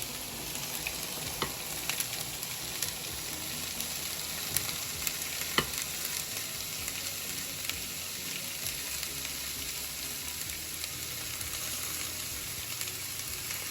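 Red onion and bell peppers sizzling in an oiled skillet over medium heat, searing undisturbed, a steady crackling hiss. A couple of sharp clicks come about four and a half and five and a half seconds in.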